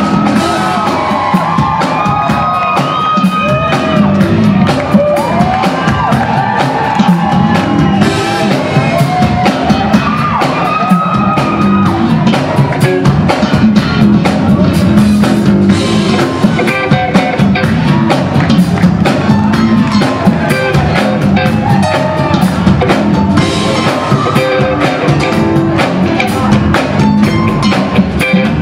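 Live funk band playing a steady groove on drum kit, bass, guitars and keyboards, with the crowd cheering over it.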